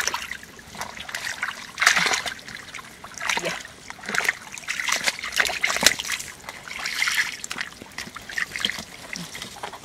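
Wet mud and muddy water squelching and splashing in irregular bursts as hands and bare feet work through the mud of a drained canal bed.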